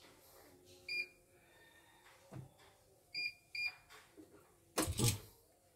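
CNY E900 embroidery machine beeping: one short electronic beep about a second in, then a quick double beep a couple of seconds later, signalling that the machine has taken in the embroidery file. A soft knock and, shortly before the end, a louder brief thump of handling.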